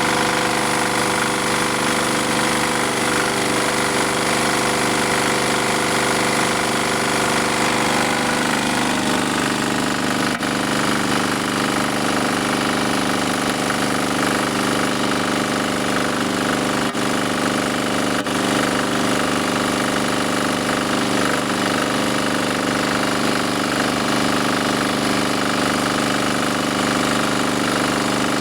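Small generator engine, a converted gasoline engine running on hydrogen gas drawn in at atmospheric pressure, running steadily. Its tone shifts about nine seconds in and then stays even.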